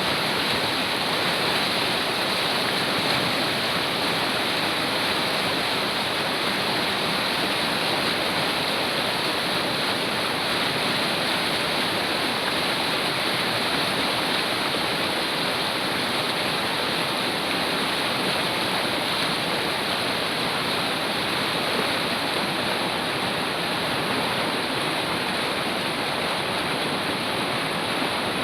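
A fast river or stream rushing steadily over rocks, a dense even roar of water with no let-up.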